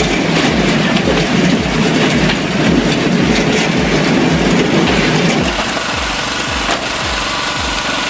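Heavy machinery running, with a dense mechanical noise that changes abruptly about five and a half seconds in, over background music with a steady beat of about two low thumps a second.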